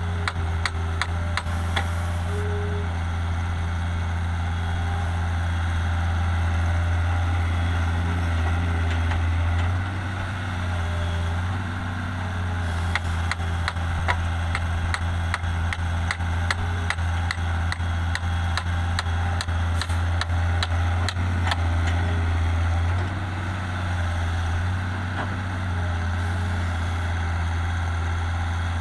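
Hitachi EX160 excavator's diesel engine running with a steady low drone, its sound dipping briefly a few times as it digs and swings. Stretches of fast, regular ticks run over the drone.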